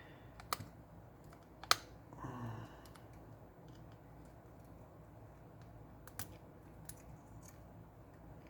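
Faint, scattered clicks and light taps of a small tool on a smartphone's internal parts as flex-cable connectors are unclipped, with two sharper clicks in the first two seconds.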